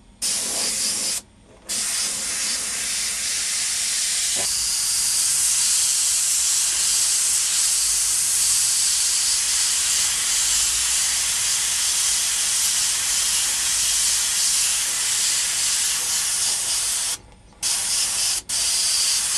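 Airbrush spraying paint: a steady hiss of air that cuts off briefly about a second in and twice near the end as the trigger is let go.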